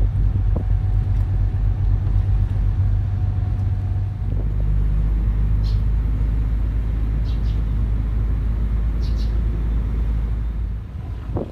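Speedboat engine running with a steady deep rumble, its tone shifting about four seconds in and easing off near the end.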